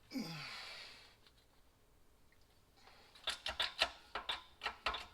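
Shop press being worked to press a bearing race into a truck wheel hub: a short hiss with a falling tone at the start, then from about three seconds in a quick run of sharp mechanical clicks, about four or five a second.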